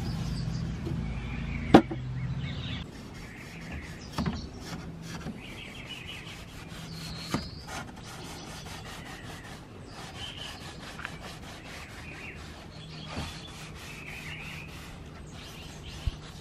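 Hand sanding: a sanding block rubbed back and forth over the wooden top of an antique dresser, after a cloth wipes out a wooden drawer. A few sharp knocks come through the rubbing.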